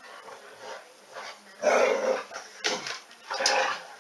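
A dog barking: a few loud barks in the second half.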